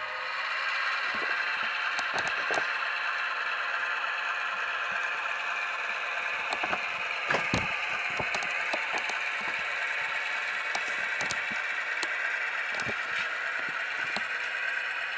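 Tsunami sound decoder in an HO-scale GP38-2 model playing a diesel locomotive engine sound at notch one through the model's small speaker, steady and thin with no bass. Irregular sharp clicks sound through it, the loudest about halfway through.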